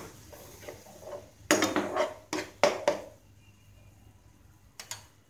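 Metal spoon stirring pineapple paste in a frying pan, scraping across the pan and knocking against it, with a run of loud clatters in the middle, then two quick clicks near the end.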